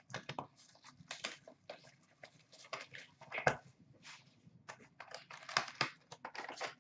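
Hands handling and opening a cardboard hobby box of hockey cards: irregular light taps, scrapes and crinkles, with louder strokes about halfway through and again near the end.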